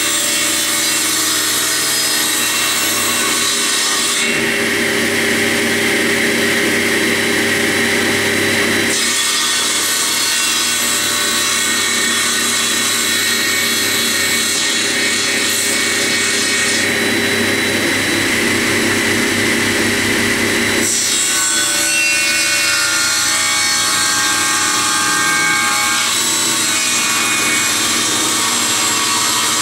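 Table saw running and its circular blade ripping a sapele mahogany board, a steady motor hum under the noise of the cut. The sound of the cut changes abruptly several times.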